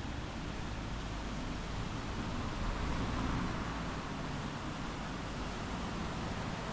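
Steady rushing noise with no distinct events, swelling a little about halfway through.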